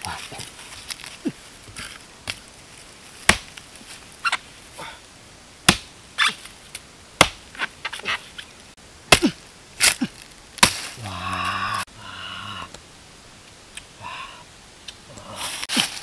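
A knife chopping into the base of a bamboo shoot: single sharp cuts, irregularly about a second apart. A short low pitched sound comes partway through.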